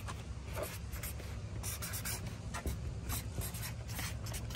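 Felt-tip marker scratching across paper in short, uneven strokes as a signature is written.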